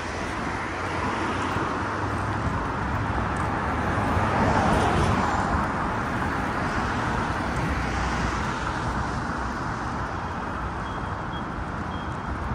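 Road traffic: a steady hum of passing vehicles, with one passing close and loudest about four to five seconds in.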